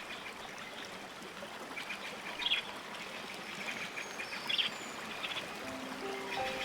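Bird calls: two short, high calls about two seconds apart over a steady hiss like running water, with music notes coming in near the end.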